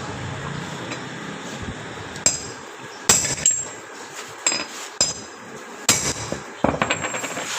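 Irregular sharp metallic strikes and clinks, each with a short ringing, from metal tools hitting metal tractor parts. There are about ten, with several in quick succession near the end.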